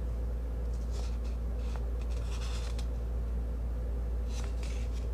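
Brief rustling and handling noises of small pump accessories and their packaging being picked up and sorted, a few short rustles about one, two and four and a half seconds in, over a steady low hum.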